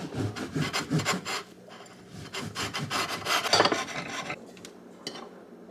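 A knife sawing back and forth through a bagel, quick rasping strokes in two bursts, the second ending about four seconds in.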